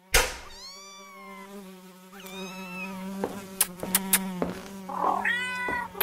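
A cat meowing several times, a long meow near the start and another near the end, over a steady buzzing hum that stops about three-quarters of the way through. A quick run of sharp clicks falls in the middle.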